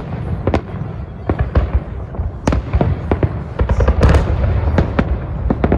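Festive fireworks salute: a rapid, irregular run of bangs and crackles over a continuous low rumble, heaviest about four seconds in.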